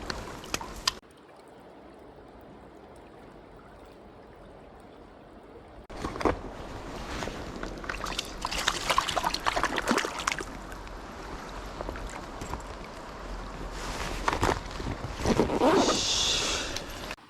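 Mountain stream water running and trickling, with louder stretches of close splashing and sloshing water later on; the level drops suddenly about a second in and rises again about six seconds in.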